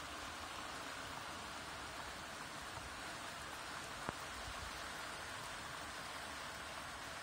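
Steady rain falling, an even hiss, with a single sharp tick about four seconds in.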